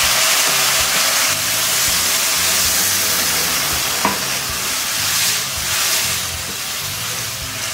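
Water poured onto hot ghee-roasted vermicelli and sugar in a wok, sizzling steadily as a spatula stirs it. The sizzle eases a little after about five seconds, with a single light knock about four seconds in.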